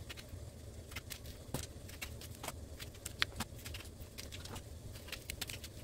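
Small knife slitting raw bitter gourds lengthwise: faint, irregular crisp clicks and crunches as the blade cuts through the firm skin and flesh, over a low steady hum.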